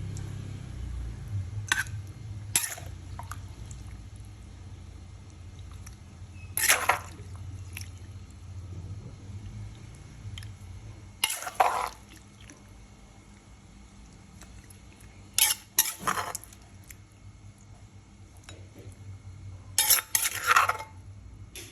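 Utensils clinking and scraping against a dish, in short bursts a few seconds apart.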